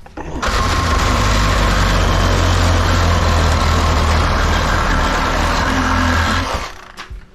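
Power saw cutting the copper tube ends (the "noodles") off a copper-and-aluminum radiator. It is loud and steady, starting about half a second in and stopping about a second before the end.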